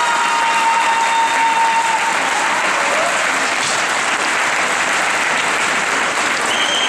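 Rink audience applauding, a steady dense clapping, with a long held high note over it in the first two seconds.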